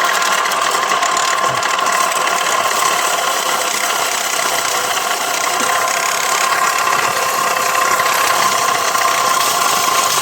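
Small battery-powered electric motor of a homemade rice-washing machine running steadily, with a constant high whine.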